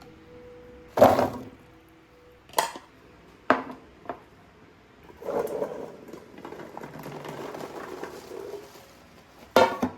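Kitchenware being handled: several sharp clinks and knocks, a close pair of them near the end, with a stretch of softer, continuous noise from about five seconds in.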